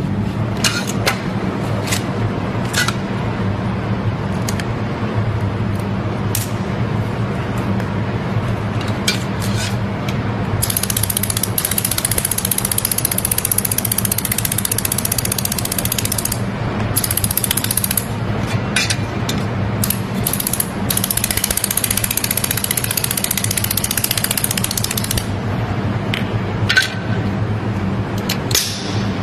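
Handheld laser welder at work on thin metal sheet: a steady low machine hum throughout, with scattered clicks and taps. From about ten seconds in, a high hiss broken by short gaps runs for roughly a quarter of a minute while the weld is laid.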